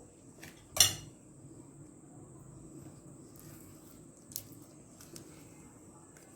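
A spoon clinks sharply against a dish once, then taps lightly a few more times while batter is divided between two baking dishes. A faint steady high-pitched whine runs underneath.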